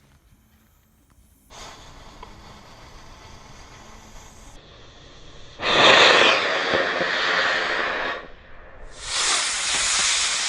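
Model rocket motor firing about a second and a half in, with a hissing rush. Two louder bursts of rushing noise follow later.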